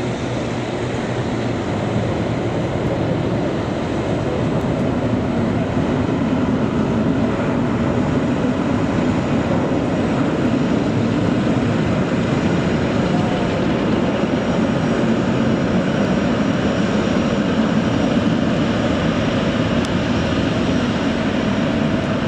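Jet engines of a taxiing twin-engine airliner running at low thrust: a steady rushing whine over a low hum, growing slightly louder a few seconds in.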